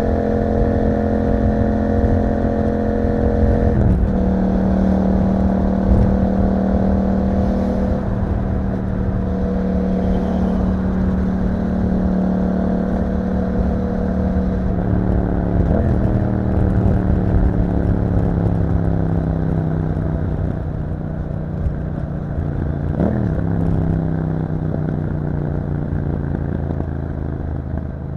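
Yamaha MT-07's parallel-twin engine running through an Akrapovic exhaust at fairly steady revs on the move. Its pitch changes briefly three times, each time settling a little lower.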